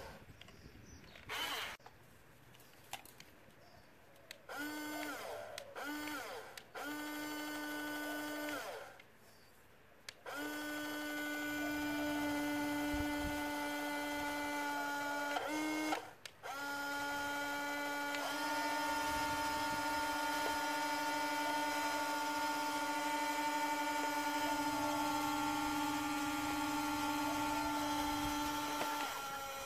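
The electric motors and gearboxes of a Huina RC crawler crane whine at a steady pitch as the crane slews round and winches its lattice boom up. The whine comes in several short bursts, then in two long steady runs.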